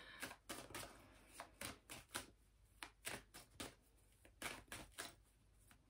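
Faint, irregular soft clicks and snaps of tarot cards being handled and shuffled, about two or three a second.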